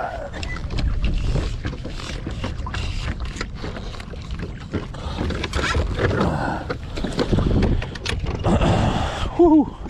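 Minn Kota bow-mount trolling motor being unstowed and lowered into the water: scattered clicks and knocks from its mount and shaft over a steady low wind rumble on the microphone.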